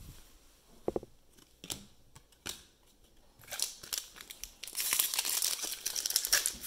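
Foil trading-card pack wrapper crinkling as fingers tug at its sealed end to tear it open, the crackling growing loud in the second half after a few faint taps. The pack is hard to open.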